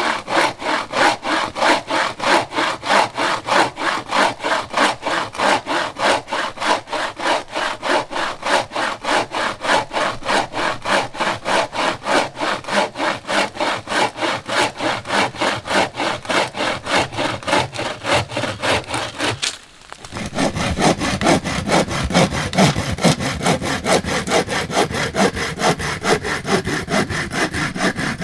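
Hand saw cutting through a wooden branch in steady back-and-forth strokes, about three to four a second. The sawing stops about 20 seconds in and gives way to a denser, uneven scraping of wood.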